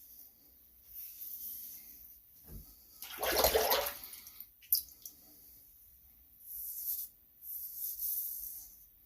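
Rockwell 6S safety razor scraping through lather on a shaved head in short strokes, with about a second of water splashing midway as the razor is rinsed, followed by a sharp click.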